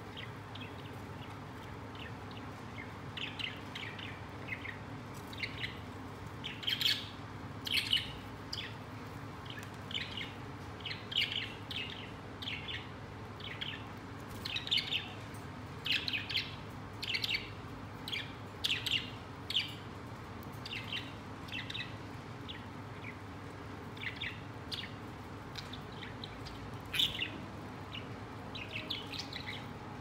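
Pet budgerigars chirping: short, high chirps coming every second or two in loose clusters, over a steady low hum.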